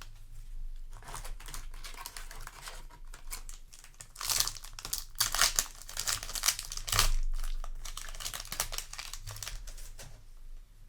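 Foil Yu-Gi-Oh! booster pack wrapper crinkling and being torn open, with irregular crackling that is loudest about four to five seconds in and again about seven seconds in.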